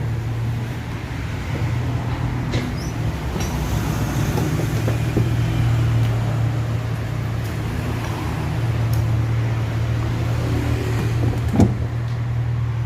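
Steady low hum with a few light metallic clicks and one sharp clink near the end, as bolts on a twin-tub washing machine's motor mount are tightened with a wrench.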